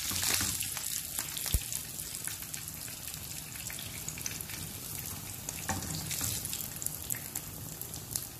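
Masala-marinated sardines shallow-frying in hot oil in a pan, sizzling steadily with many small pops. One sharp knock stands out about a second and a half in.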